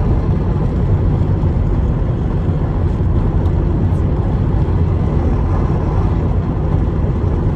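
Road and engine noise inside a moving car's cabin: a steady low rumble that does not let up.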